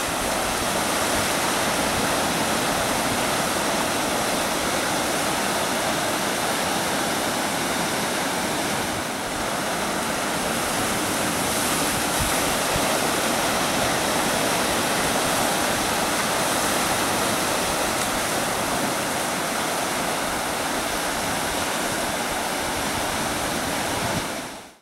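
Ocean surf breaking and washing over shoreline rocks: a steady rushing noise that fades out right at the end.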